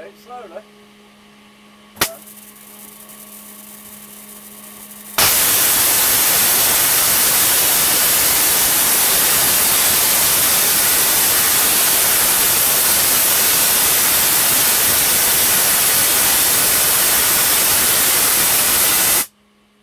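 Large Tesla coil firing, its spark arcing up to an overhead strike point with a loud, continuous crackling buzz that starts about five seconds in and cuts off abruptly near the end. A sharp click and a faint hiss come before it.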